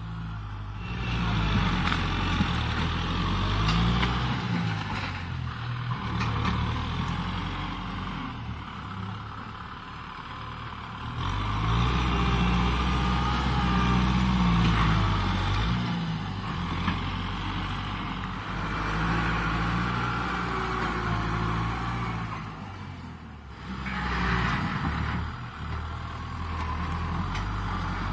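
Kubota M6040SU tractor's diesel engine working under load as it drags a disc harrow through brush, its note swelling and easing several times, with a rough hiss of the discs tearing through the vegetation over it.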